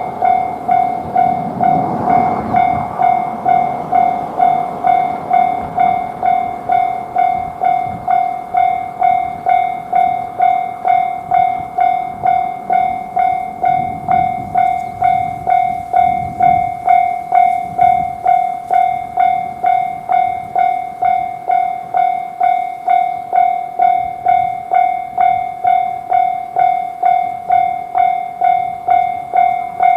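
Japanese railroad crossing warning bell ringing its repeated 'kan-kan' at an even pace, a little under two strikes a second. A low rumble swells briefly about two seconds in and again around the middle.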